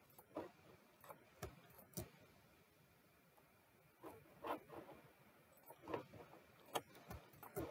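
Faint, scattered clicks of a computer mouse: a few in the first two seconds, then a cluster from about four seconds on.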